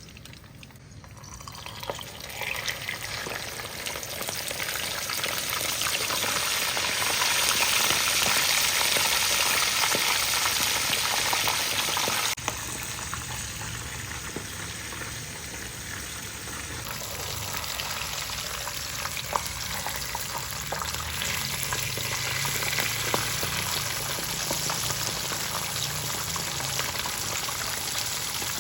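Food frying in hot oil: a dense, crackling sizzle that builds over the first few seconds and shifts abruptly twice partway through.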